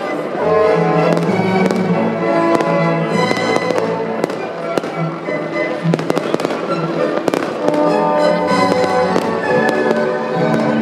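Fireworks going off in rapid, irregular bangs and crackles, over Viennese waltz music with sustained orchestral notes.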